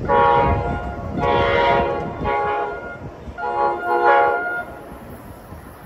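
An approaching electric train's multi-note air horn sounding four blasts: long, long, short, long, the standard warning pattern. The last blast is the longest. Wind rumbles on the microphone early on.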